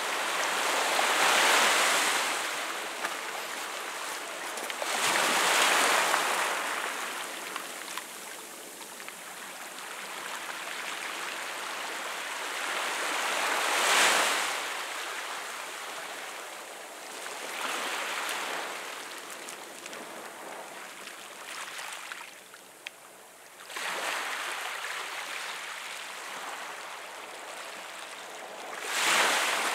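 Small sea waves washing in around a rock and over a stony shore, then draining back. The surf comes in about six swells, each building and easing off over a second or two, with a quieter lull a little before the last two.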